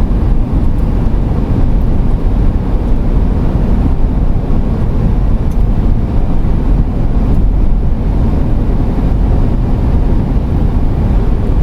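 Steady road, engine and wind noise of a Class B camper van driving at highway speed.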